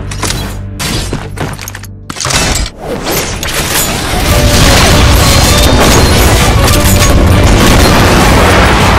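Booming gunshots and impact effects from a high-calibre sniper scythe in an animated battle, over a loud rock soundtrack; the sound thins out briefly about two seconds in, then turns dense and much louder about four seconds in.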